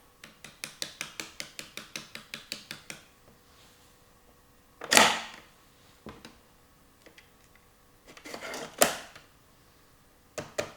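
Rapid plastic clicking from a toy mechanism, about five clicks a second, broken by a louder clatter about five seconds in and a shorter rattle near nine seconds; the quick clicking starts again near the end.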